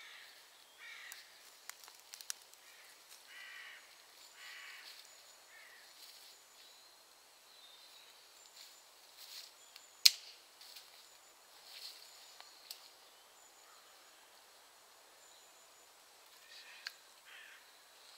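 Crows cawing several times in the first five seconds, then scraping and small knocks as a stick digs into turf and soil, with one sharp knock about ten seconds in.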